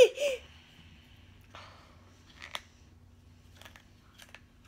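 A young girl's laugh trailing off in the first half-second, then a few faint, scattered crackles and clicks.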